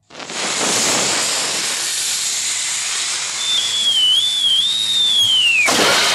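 A lit dynamite fuse hisses steadily. About three and a half seconds in, a wavering whistle joins it and falls in pitch as the stick of dynamite flies through the air. It ends in a loud splash as the stick hits the water, near the end.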